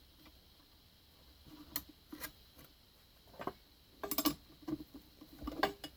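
Light metallic clicks and clinks as a grinding disc is handled and fitted back onto the grinder's spindle with its nut, a few single ones at first and a busier run in the last two seconds.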